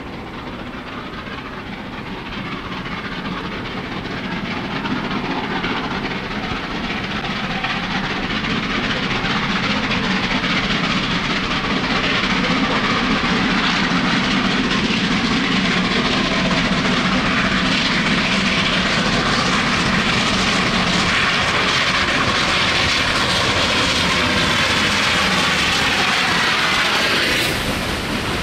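Rebuilt Southern Railway Merchant Navy class three-cylinder Pacific steam locomotive working hard up Shap bank with a heavy train, its rapid exhaust beats growing steadily louder as it approaches. Near the end it passes beneath and the beats give way to a rushing hiss of steam.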